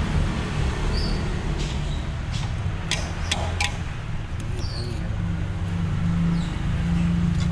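Pan of boba balls boiling on a gas stove: a steady low rumble of burner and boiling water. A few sharp metal clinks come about three seconds in as a wire spider strainer is handled.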